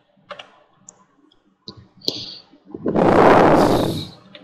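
Scattered light clicks of a computer keyboard and mouse. Then, a little under three seconds in, a loud rush of noise lasting about a second and a half.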